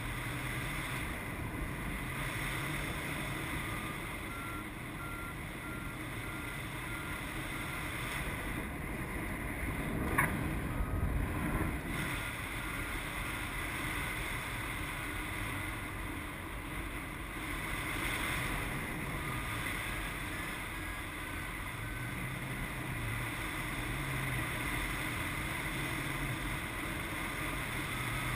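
Airflow rushing steadily over the microphone of a paraglider in flight, with a variometer's faint high beeps in a few short runs, the sign of the glider climbing in lift. A short louder gust of wind noise comes about ten seconds in.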